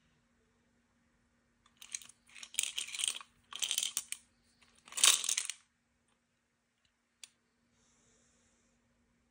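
Paper clips, push pins and binder clips rattling inside a stacked clear plastic container as it is tilted and turned, in three or four bursts, the last the loudest. A single sharp click follows a couple of seconds later.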